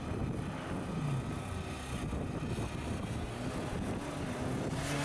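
Engine of a tube-chassis rock crawler buggy running as it climbs out of a rocky pit, a steady low rumble.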